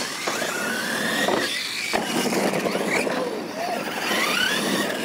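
Losi LMT electric R/C monster trucks racing off the line on a dirt track. Their brushless motors whine, rising and falling in pitch with the throttle, over the rush of tyres on loose dirt, with a few light knocks.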